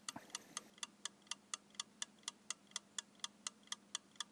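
A clock-style timer ticking steadily, about five sharp, quick ticks a second, over a faint steady hum.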